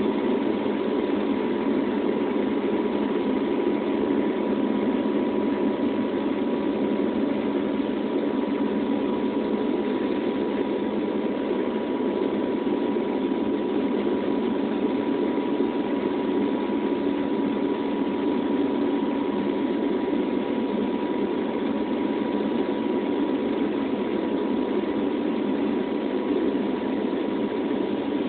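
Steady engine drone inside the cabin of a turboprop airliner in flight, with a thin steady whine above it.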